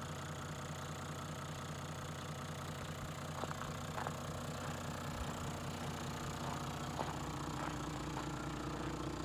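Toyota Land Cruiser's 1HD-FTE 4.2-litre straight-six turbodiesel idling steadily, with a few light clicks over it.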